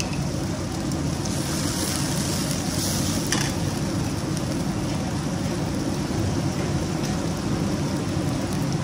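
Panch phoron and dried red chillies sizzling in hot mustard oil in a steel pan, the hiss swelling for a couple of seconds about a second in, over a steady low background roar.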